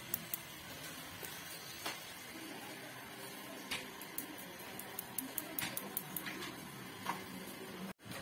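Scattered sharp clicks from a Modena built-in gas hob's control knob and igniter as the knob is pushed and turned. The right-hand burner does not light.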